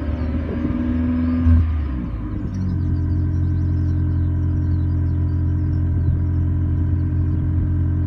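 Toyota Prius ZVW30's 1.8-litre four-cylinder engine running through a Tommykaira titanium aftermarket muffler with 60 mm piping. Its pitch shifts up and down over the first two seconds, then the exhaust holds a steady drone.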